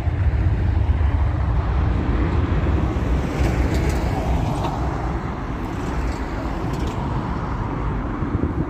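Jet engines of a Boeing 737 airliner on the runway, a steady loud rush, with wind buffeting the microphone.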